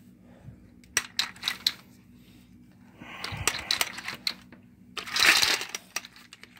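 Plastic toy helicopter with loose balls inside its clear body rattling and clattering across a tile floor: a few sharp clicks about a second in, a rattle around three seconds in, and the loudest clatter about five seconds in.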